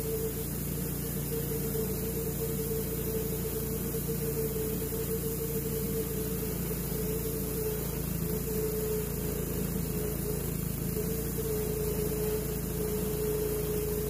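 Wood-Mizer LT10 portable bandsaw mill running steadily under load, its blade cutting through a maple log. A constant tone sits over the engine hum and hiss, with no change in pace.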